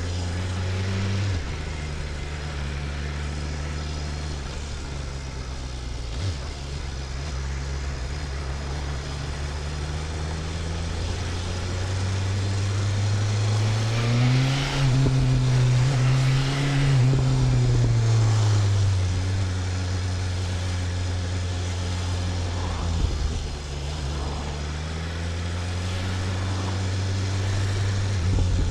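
BMW S1000RR inline-four engine running under way at moderate revs, dropping in pitch about a second in. About halfway through the revs climb, hold for a few seconds, then fall back to a steady cruise.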